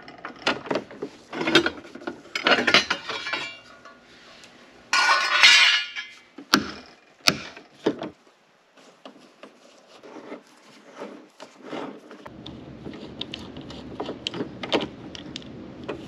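Metal hand tools and hardware clicking and clinking against each other and the door's sheet metal as a wrench works the lock's mounting bolts inside a car door. A denser rattle comes about five seconds in, then two sharp clicks, and it grows quieter toward the end.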